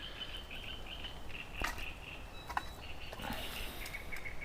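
Outdoor ambience: faint, repeated high chirps over a low wind rumble, with a couple of sharp clicks.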